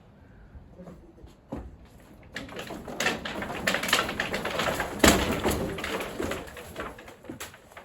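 Wooden pergola being pulled down: a dense run of cracking and clattering wood, starting a couple of seconds in and loudest about five seconds in.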